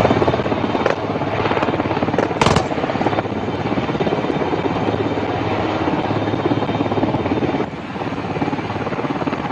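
Military navy helicopter hovering low, its rotor blades beating in a fast, steady chop. There is a brief sharp noise about two and a half seconds in.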